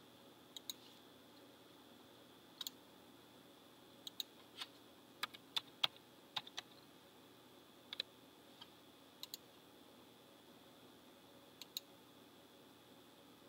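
Computer keyboard keystrokes and mouse-button clicks in short, sparse sets over a faint steady hiss. There are single and paired clicks early and late, and a quick run of keystrokes about five seconds in as a number is typed.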